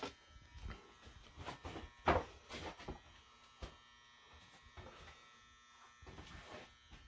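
A faint, steady electrical buzz, with a few short knocks and rustles of handling; the sharpest knock comes about two seconds in.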